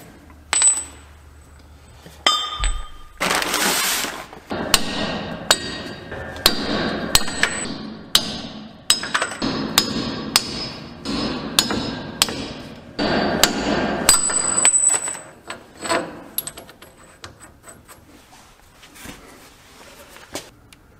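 Sledgehammer blows on the steel wheel studs of a garbage truck's wheel hub: a long run of sharp, ringing metal strikes that stops about 16 seconds in, followed by a few light clinks.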